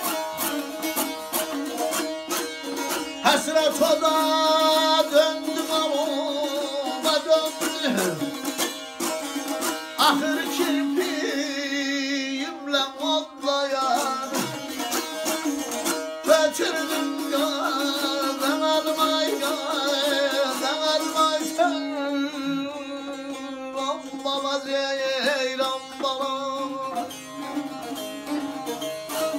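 Azerbaijani saz played solo: a quick strummed and plucked melody over a steady drone from the open strings.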